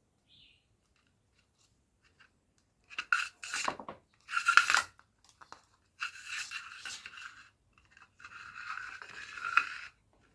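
Scraping: a few short strokes about three seconds in, then two longer stretches of steady scraping, each a second or two long.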